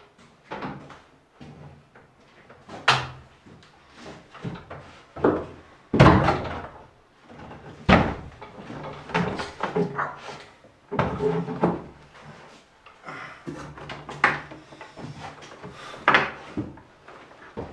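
Wooden kitchen cabinet knocking and scraping against stone as it is hauled up a stone staircase: a run of irregular knocks and thuds, the heaviest about six and eight seconds in.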